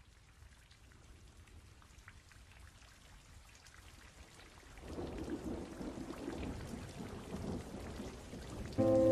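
Rain falling steadily over a low thunder rumble, the rain growing louder about five seconds in. Soft music begins just before the end.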